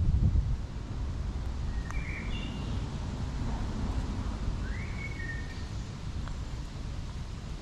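Birds calling with a few short whistled notes, one of them rising and then held, over a steady low rumble.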